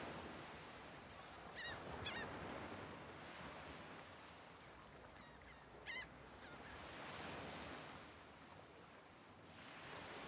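Sea waves washing onto a shore, surging and falling back in slow swells. A few short bird calls come over them: two close together about two seconds in, then another near six seconds.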